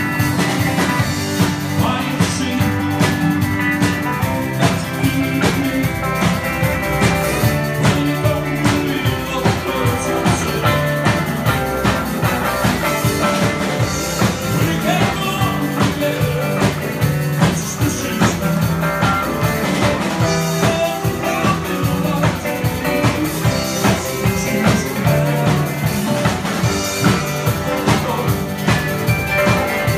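Live rock and roll band playing with a steady beat: electric guitars, upright bass, drum kit and a lead vocal.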